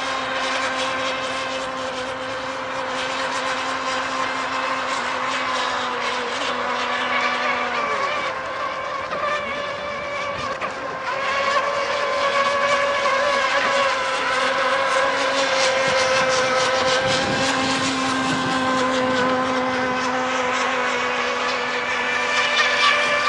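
Radio-controlled racing speedboat running at speed, its motor giving a steady high buzz. The pitch dips and falls away about eight seconds in, then the sound grows louder as the boat comes back up to full speed.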